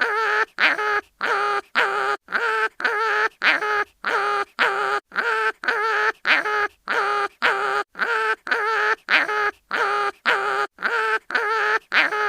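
Cartoon animal crying-in-pain sound effect: short wavering cries repeated about twice a second, each cut off by a brief silence.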